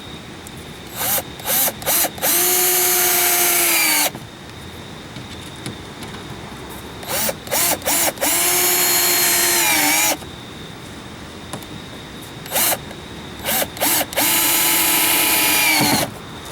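Power drill running in three cycles. Each cycle is a few short trigger blips, then a steady run of a second and a half to two seconds that spins up and winds down, typical of driving fasteners.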